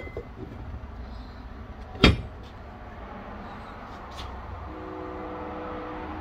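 A single sharp metal clank about two seconds in, the steel Subaru flywheel being set down on the aluminium adapter plate, over a steady low hum; a faint steady tone comes in near the end.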